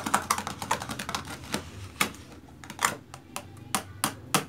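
A plastic whisk beating shaving gel into foam in a plastic container, clicking against its sides. The clicks come fast at first and then become slower, sharper strikes.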